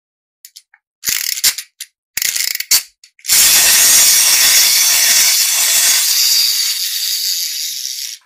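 Plastic toy mechanism: a few short bursts of ratcheting clicks, then a loud, steady rasping rattle lasting about five seconds.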